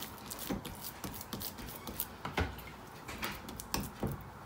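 Hands kneading and pressing soft, sticky naan dough of flour, yoghurt and oil in a glass bowl: irregular soft squishes with light taps every half second or so.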